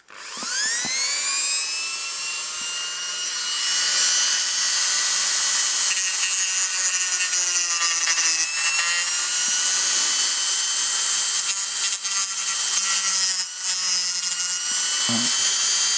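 Dremel rotary tool spinning up with a rising whine, then running at high speed with its pitch briefly dropping as it is pressed into the work, grinding material away from a die-cast model car to lower its stance.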